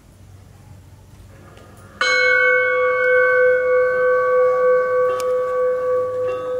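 Quiet hall ambience, then about two seconds in a bell is struck once and rings on, fading slowly with a slight pulsing.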